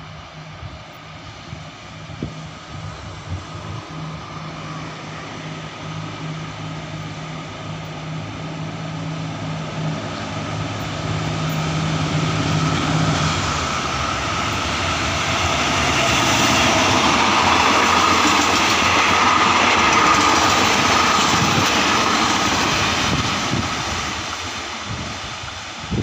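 A GEK diesel-electric locomotive with a Cummins KTA-38L engine hauling a passenger train past: the engine's steady low hum drops away about halfway through, while the rumble of the wheels on the rails swells as the locomotive and carriages go by and then fades.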